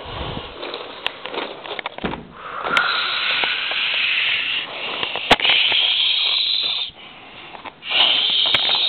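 A child's mouth-made whooshing sound effect for a toy ship in flight: a long breathy hiss of about four seconds, then a shorter one near the end, after a couple of seconds of light clicks from handling toys.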